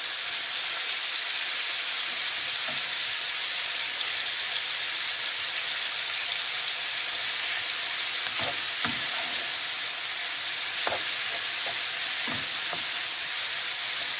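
Diced chicken liver and gizzard sizzling steadily in hot oil in a non-stick frying pan, while they sear. A wooden spatula stirs and scrapes them several times in the second half.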